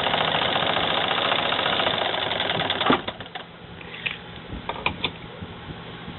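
A hand-cranked Singer 99K sewing machine stitches at speed with a fast, even clatter. It stops abruptly with a clack about three seconds in, followed by a few light clicks.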